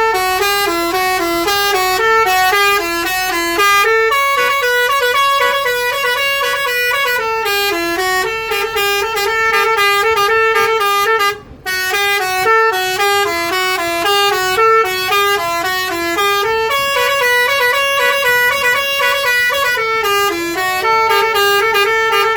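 Bus telolet horn, a multi-tone musical air horn, playing a melody of quick stepped notes almost without pause, with one short break about halfway through.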